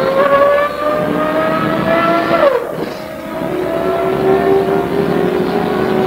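MAN SL200 city bus's diesel engine and automatic transmission, heard from on board while pulling away. The whine climbs slowly, drops sharply about two and a half seconds in as the gearbox shifts up, then holds lower and starts to climb again.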